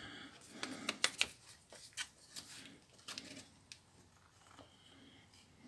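Scattered small plastic clicks and taps as a Nokia 6070 mobile phone is handled and its back cover and keys are worked, with a cluster of sharp clicks about a second in.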